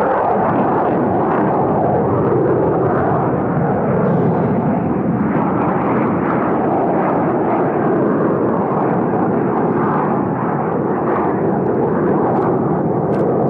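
A low-flying airplane passing close overhead, its engine noise a loud, steady roar without a clear pitch.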